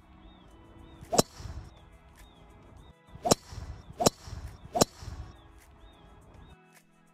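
Four sharp cracks of a golf club striking golf balls off the tee, each with a short metallic ring, over faint background music.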